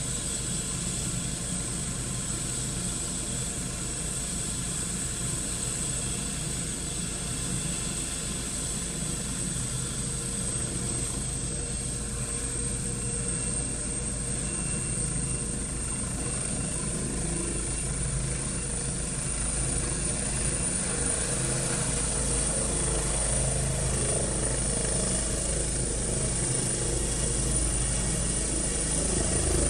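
Eurocopter EC135 medical helicopter running on the ground with its rotor turning: a steady high turbine whine over a low rotor rumble. About halfway through, the whine edges up in pitch, and the rumble grows louder as it pulls power and lifts off near the end.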